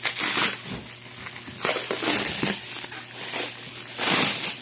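Packaging crinkling and rustling in several irregular bursts as a package is handled and opened.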